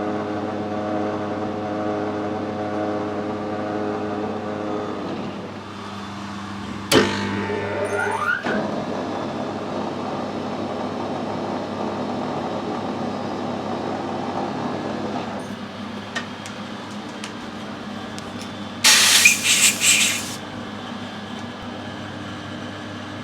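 Metal lathe running with a steady hum. It dies away about five seconds in, then a knock and a rising whine as it spins back up around seven seconds. It keeps running more quietly, with a short loud burst of hissing near the end.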